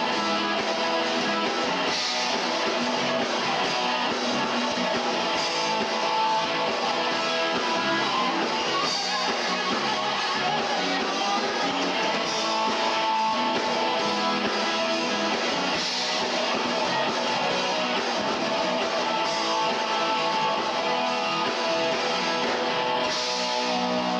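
Live rock band playing an instrumental passage, with strummed guitars leading over a steady, continuous band sound.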